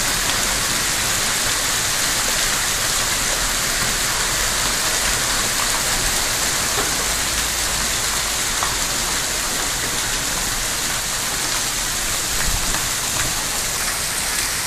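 Heavy hail and rain pelting a street, a dense steady hiss with scattered sharp ticks of hailstones striking.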